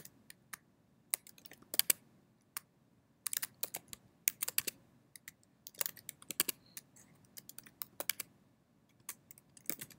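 Typing on a computer keyboard: soft key clicks in irregular clusters with short pauses between them.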